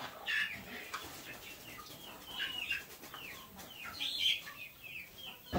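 Chickens calling in the background: a run of short, high, falling cheeps and clucks, about two a second. A sudden thump comes right at the end.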